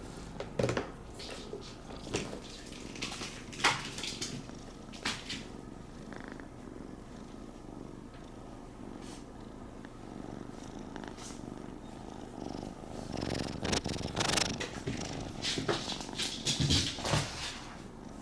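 A cat purring steadily close by, with scattered small clicks and rustles over the purr.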